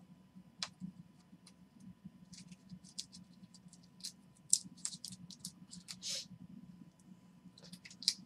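Football trading cards handled and sorted by hand on a tabletop: scattered light clicks and ticks as cards are flipped, tapped and stacked, with a short sliding rustle about six seconds in.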